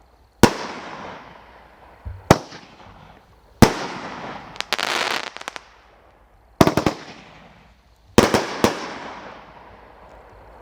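World Class 'One Bad Mother' 16-shot firework cake firing: about five sharp bursts a second or two apart, each trailing off in a fading hiss, with a cluster of smaller pops near the middle.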